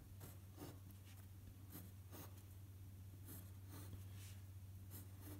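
Pencil drawing on paper: faint, short scratching strokes at an irregular pace as small mountain symbols are sketched into hexes.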